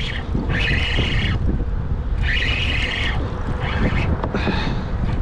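Fishing reel cranked in several short whirring bursts, up to about a second each, as a hooked fish is reeled up. Wind rumbles on the microphone underneath.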